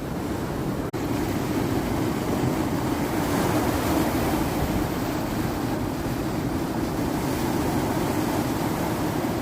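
Ocean waves and wind making a steady rushing noise, with wind buffeting the microphone. There is a brief dropout about a second in.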